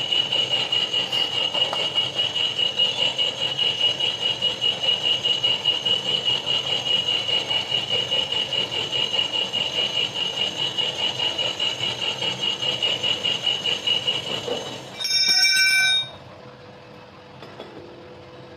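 A metal-cutting tool squeals high and steadily against the workpiece during machining, pulsing about three to four times a second. About fifteen seconds in, a brief harsher tone sounds and the squeal stops.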